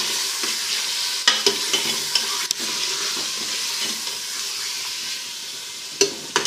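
Beef pieces frying in hot ghee with garlic-ginger paste, sizzling steadily while being browned until the meat changes colour. A few sharp knocks sound over the sizzle, and it eases a little near the end.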